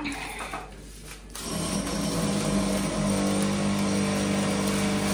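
A kitchen appliance's electric motor switches on about a second and a half in and runs on with a steady humming whir.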